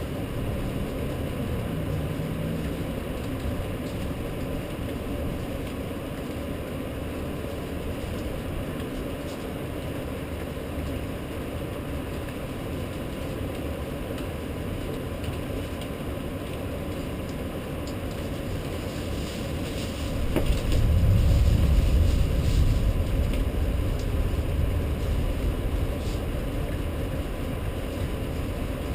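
Steady low background rumble. About two-thirds of the way through, a deep rolling rumble swells up and fades out slowly over several seconds: thunder.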